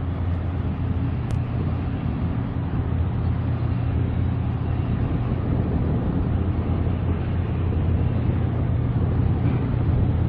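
Boeing 929 Jetfoil hydrofoil ferry running foilborne at speed. Its gas turbines and waterjets make a steady low drone over a rushing hiss of spray.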